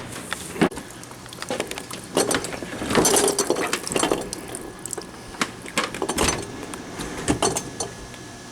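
Refrigerator being handled and moved, giving irregular knocks, clicks and rattles, busiest about three seconds in.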